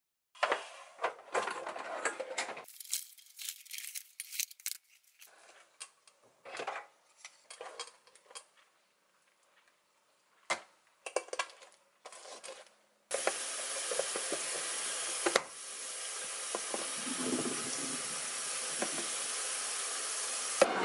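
Kitchen handling sounds: plastic rustling and a clear plastic food container being handled, with light clinks and knocks. About two-thirds of the way in, a steady hiss starts and runs on, with one sharp click soon after.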